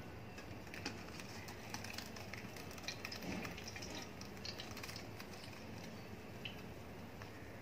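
Faint wet splatter of thick blended phalsa pulp being poured into a stainless steel sieve, with a few light ticks scattered through it.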